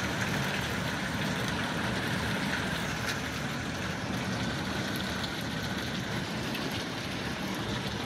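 Small hailstones falling heavily, a steady rushing hiss with a few faint clicks of stones striking car bodies and roofs.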